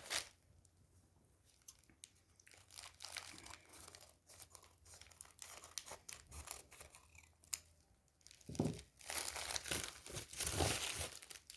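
Packaging rustling and crinkling as small parcels are handled and torn open, with light clicks. It is sparse at first and busier and louder from about two-thirds of the way in.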